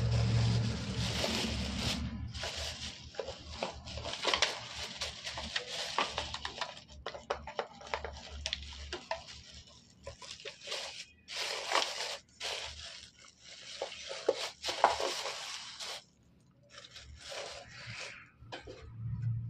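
Thin plastic bag rustling and crinkling in irregular bursts as it is handled, with scattered small clicks.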